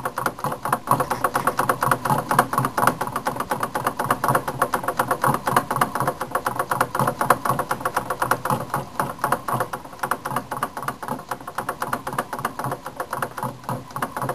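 Homemade fan-type Stirling engine running on the heat stored after its alcohol flame went out: a rapid, even run of light mechanical knocks, several a second, that keeps a steady pace.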